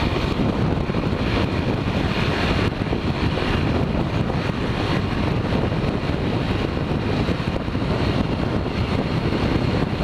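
Steady wind rush blasting the camera's microphone on a Yamaha XTZ 150 Crosser motorcycle riding at highway speed in strong, gusty wind, with the bike's running mixed in underneath.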